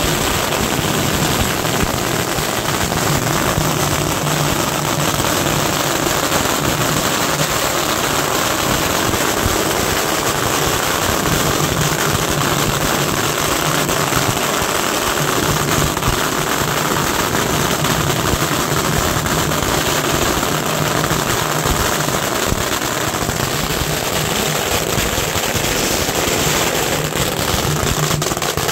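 Long strings of Chinese firecrackers going off in a rapid, continuous crackle of pops with no break.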